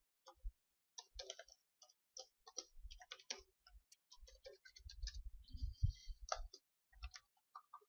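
Computer keyboard being typed on: faint, irregular key clicks, thickest a little past the middle, as an email address and password are keyed in.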